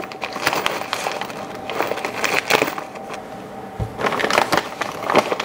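Latigo leather strap being bent and handled against a steel block, giving crackling creaks and many small clicks as a copper rivet post is worked through its punched holes, with a single low thump a little before four seconds in.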